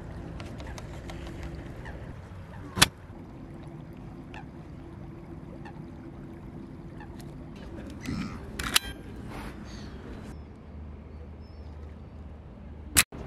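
Mechanical clicks from a Zeiss Ikon Ikonta M folding medium-format camera being handled: one sharp click about three seconds in, and another near nine seconds in after a few shorter handling sounds. A steady low background noise sits underneath.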